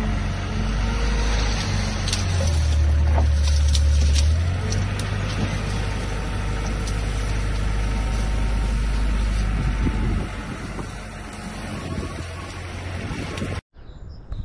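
Schaeff wheel loader's diesel engine working as its forks push into a pile of cut brush, loudest for a couple of seconds in the first third, with a few sharp cracks of branches breaking. The engine drops to a quieter running after about ten seconds, and the sound cuts off abruptly just before the end.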